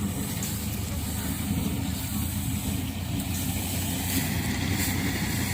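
Engine of a wheat-harvesting machine running steadily, a continuous low hum.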